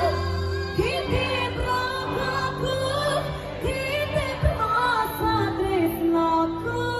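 A woman singing live into a handheld microphone over a band, heard through the stage sound system. A held note breaks about a second in into ornamented, pitch-bending vocal runs, with drum hits under the steady backing.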